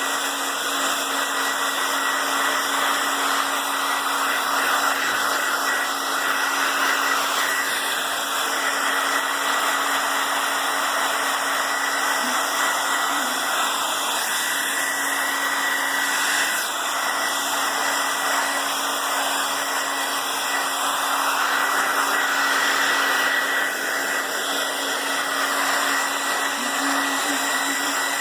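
Handheld blow dryer running steadily: an even rush of air with a thin high whine over it.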